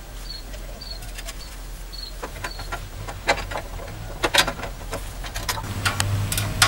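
Scattered metal clinks and knocks of parts and tools being handled while a mud motor is assembled, growing busier in the second half. A small bird gives a string of short, high, falling chirps in the first couple of seconds.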